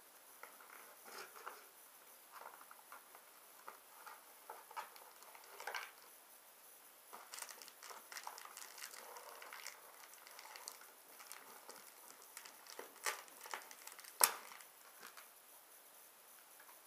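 Faint, irregular rustling and scraping of a cardboard doll box and its packaging being handled, with a sharper click about fourteen seconds in.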